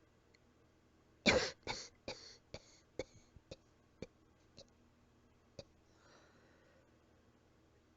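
Soft, weak coughing, slightly out of breath: a fit of about ten coughs begins about a second in, the first two strongest, then trailing off into smaller ones, followed by a faint breath.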